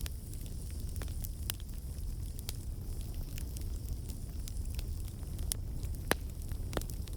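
Bonfire crackling: irregular sharp pops and snaps, a few a second, over a steady low rumble.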